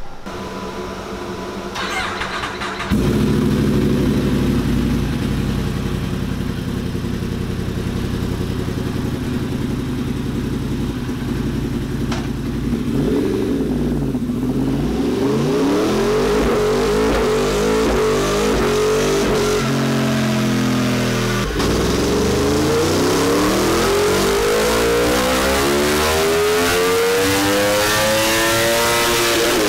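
Yamaha R1M's crossplane inline-four running on a roller dyno during partial-throttle fuel-mapping pulls. The engine holds a steady note, then its revs climb slowly in two long pulls, the pitch dropping sharply between them and again at the end as the throttle closes.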